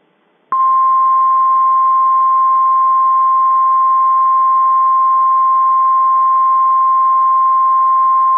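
Emergency Alert System attention tone, the single steady 1050 Hz warning tone of NOAA Weather Radio, signalling that a warning message follows. It starts abruptly about half a second in and holds at one loud, unchanging pitch.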